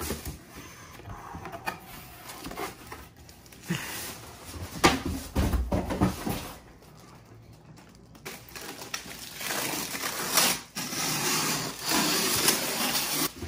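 Unpacking sounds: cardboard box flaps and a styrofoam shipping box being handled, with knocks and rubbing. Near the end comes a longer scraping hiss as the tape on the styrofoam box is cut.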